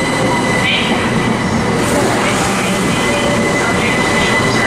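Southeastern Class 375 Electrostar electric multiple unit running close by along the platform: a steady rumble of wheels on rails with a thin, steady high whine.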